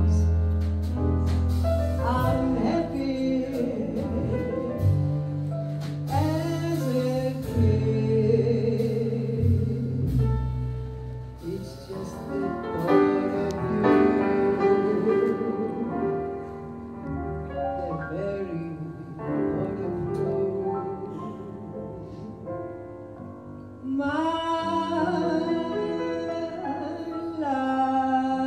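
A woman singing a slow jazz song live, accompanied by piano and double bass, with a brighter, louder passage coming in near the end.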